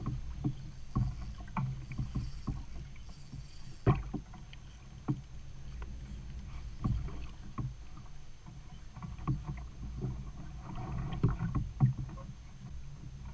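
Small waves slapping against a plastic kayak hull: irregular knocks and splashes, a few louder ones, over a steady low rumble of wind and water on the microphone.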